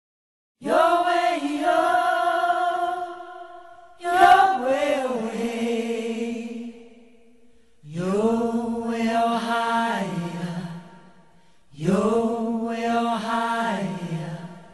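Chanted singing: four long sung phrases about four seconds apart, each held and then fading away, the later phrases lower in pitch than the first.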